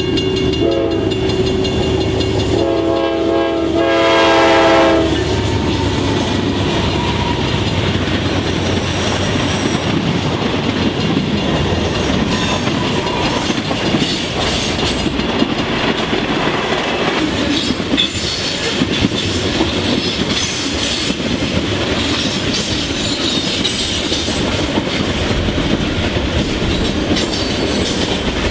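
Freight locomotive air horn: a chord that cuts off about a second in, then a louder blast of about two and a half seconds. After that, the freight train's cars roll past steadily, their wheels clicking over the rail joints.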